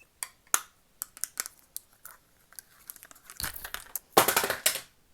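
Close-miked ASMR handling sounds: a scatter of sharp taps and clicks, then a second and a half of loud crinkling near the end, like packaging being crumpled.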